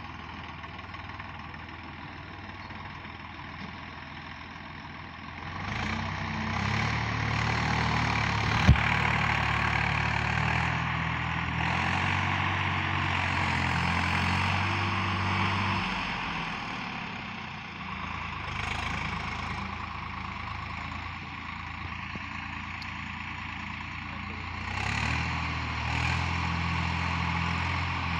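Swaraj 855 tractor's three-cylinder diesel engine running under load while pulling a rotary tiller through the soil, with the tiller's mechanical clatter over the engine hum. It grows louder about six seconds in as the tractor comes close, eases off in the middle, and comes close again near the end; a single sharp knock sounds about nine seconds in.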